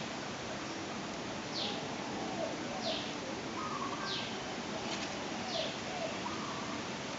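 Vintage Mitsubishi ceiling fan running with a steady whoosh of air. Over it, birds call: a short high falling chirp repeats about every second and a half, with fainter warbling calls lower down.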